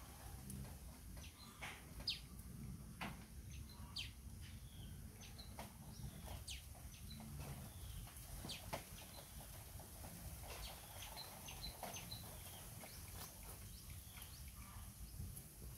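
Scattered short, high animal chirps over a low steady background hum, with a few sharp clicks.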